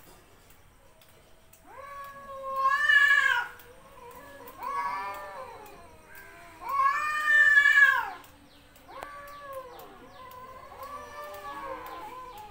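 Cats yowling at each other in a territorial standoff: long, drawn-out wails that rise and fall, the two loudest about two and seven seconds in, with lower, quieter moaning calls between them.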